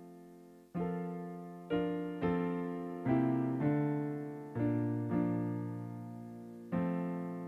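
Piano playing slow, quiet chords, each struck and left to ring and fade before the next.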